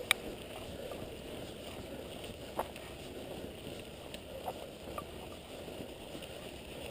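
Mountain bike riding up a dirt singletrack: a steady rumble of tyres on dirt and wind, with an occasional sharp click or rattle from the bike.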